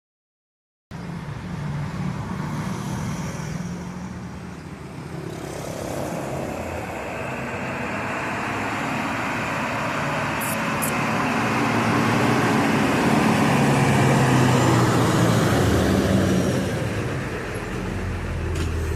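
Road vehicle engine roaring. It starts about a second in, grows steadily louder and eases off near the end.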